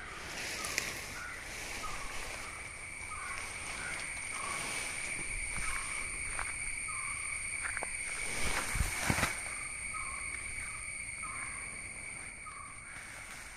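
Outdoor ambience of a steady, high insect drone at two pitches, with a short chirp repeating about every three-quarters of a second. A few brief rustles and knocks come about two-thirds of the way through, around when the elephant is pulling at the cut grass.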